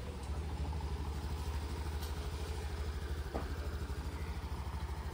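Small motor scooter engine idling, a steady, fast and even pulse.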